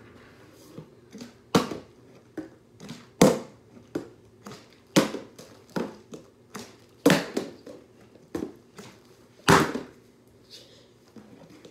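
Partly filled plastic drink bottle repeatedly hitting a wooden floor in bottle-flip attempts: a series of sharp thuds, a loud one about every one and a half to two seconds, with smaller knocks and plastic crinkling between.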